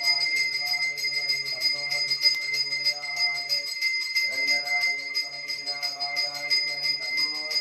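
Temple bell rung rapidly and without a break during the puja at the shrine: a bright, steady clanging of many strokes a second. Long, held, wavering notes sound underneath it.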